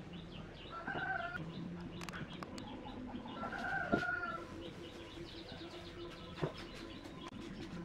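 Chickens calling in the background, with two drawn-out calls about a second in and around four seconds in. A few light knocks come from pine strips being handled on a wooden workbench.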